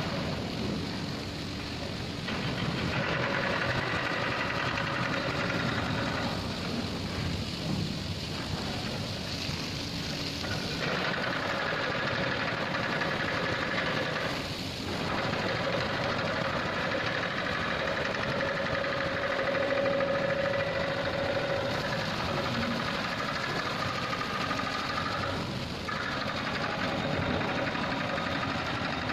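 Steady machinery noise with water spilling, as a dam's steel spillway flap gate is worked by its hydraulic hoists.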